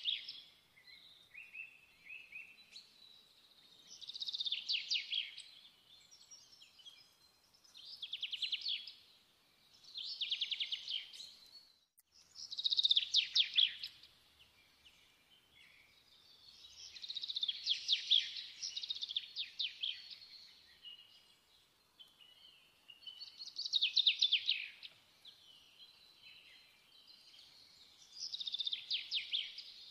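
A songbird singing short, rapid trilled phrases, one every few seconds, with one longer phrase around the middle.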